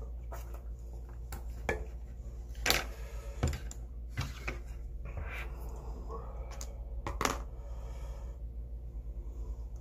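Scattered light clicks and knocks of wooden chopsticks and a plastic takeout container being handled, about half a dozen, the sharpest about three seconds in and about seven seconds in, over a steady low hum.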